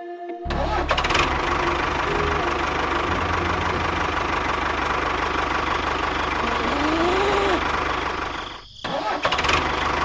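An engine running steadily, starting up about half a second in, cutting out briefly near the end and starting again.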